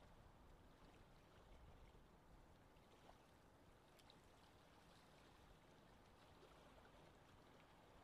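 Faint lake ambience: wind as a low, steady rumble, with light water trickling and lapping and a few small ticks.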